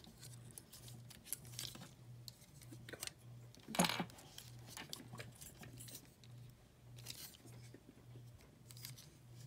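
Hard plastic action-figure parts clicking and rattling as the figure is handled and its pieces pushed into place, in scattered small clicks with a louder click about four seconds in. A faint low hum pulses about twice a second underneath.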